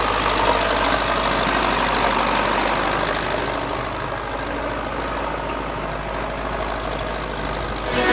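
Tractor diesel engine running steadily with a deep low hum, easing slightly in loudness about halfway through.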